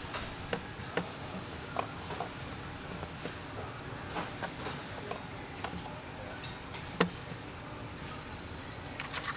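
Scattered light clicks and taps of hand tools and engine parts being handled, with one sharper click about seven seconds in, over steady background noise.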